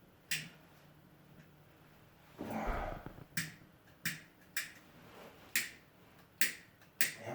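A lighter that is out of fluid being flicked again and again without catching: about seven sharp clicks at irregular intervals. There is a short scuffing noise about two and a half seconds in.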